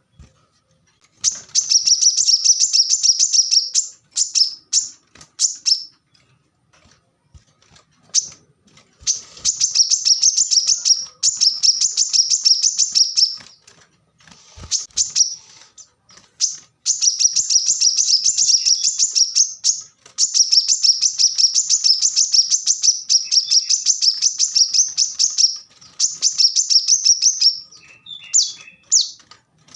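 Brown-throated sunbird (kolibri kelapa) singing in long runs of rapid, high-pitched twittering chirps, each run lasting a few seconds, with short pauses between them. A few lower, different notes come near the end.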